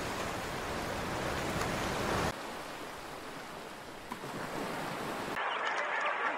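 Steady rushing of sea waves and wind, dropping to a quieter wash at a cut about two seconds in. About five seconds in, it switches abruptly to king penguins calling, with wavering, gliding cries.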